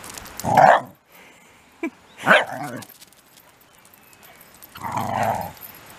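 Shiba Inu barking: three short loud barks spaced a couple of seconds apart, with a small extra yelp between the first two.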